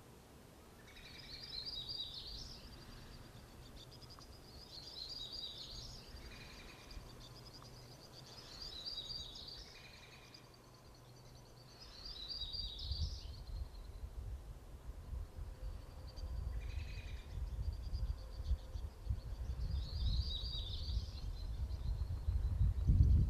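A songbird sings the same short, high, chirping phrase over and over, about every three to four seconds, over a faint continuous high trill. A low rumble grows from about halfway and is loudest near the end.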